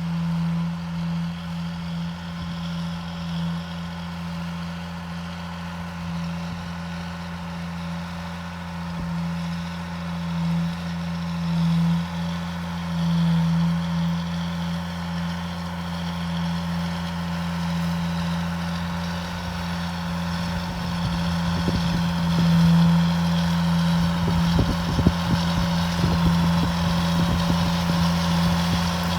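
Ford TW-15 tractor's six-cylinder turbo diesel running at a steady engine speed while pulling a four-furrow plough. Toward the end the engine gets a little louder and irregular low thumps come in.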